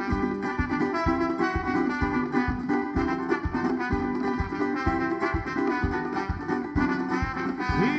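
Instrumental passage of a band's drum song: a steady drumbeat under a melody line of held notes.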